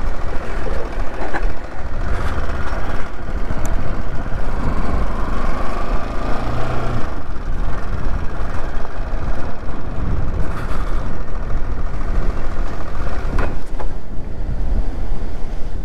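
Motorcycle engine running at low speed while the bike rides over a rough dirt track, with heavy wind rumble on the microphone and a couple of sharp knocks.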